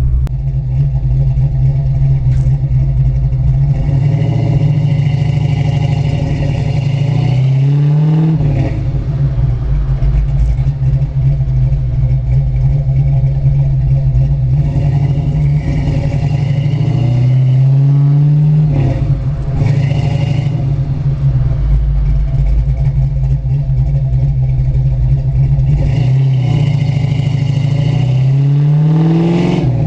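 Fox-body Mustang's modified small-block Ford V8 pulling through the gears of its manual gearbox. The engine note climbs three times, about ten seconds apart, and each climb drops off sharply at an upshift.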